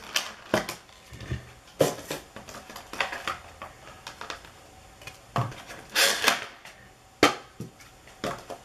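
A Pokémon Infernape V Box, a cardboard collector box, being handled and opened: a string of sharp taps and clicks, with a longer rustle about six seconds in.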